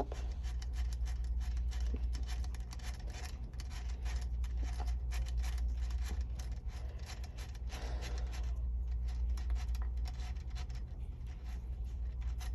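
Steel cable being pushed up through its housing and fittings, a continuous run of small scratches and clicks, with a steady low hum underneath.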